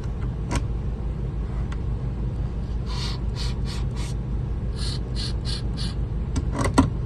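Sharpening machine's motor running with a steady hum, while a shear blade is drawn briefly across the spinning hone in a few short scraping strokes, testing the bevel angle; a sharp knock near the end.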